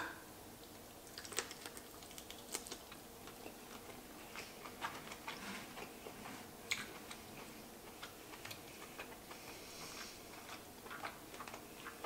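Faint, irregular clicks and small crackles from handling and breaking open a cooked lobster tail's shell, scattered a few a second.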